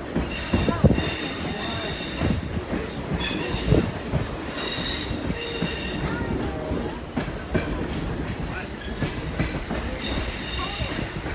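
Railroad car's steel wheels rolling on the rails with a steady rumble and a few knocks, while high-pitched wheel squeal sets in about half a second in, runs for several seconds, and returns near the end.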